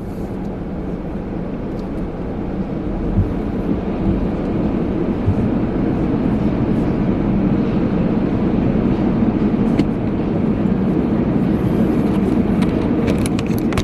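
Steady low rumble of a car's engine and car wash machinery heard from inside the car, slowly growing louder, with a few light clicks near the end.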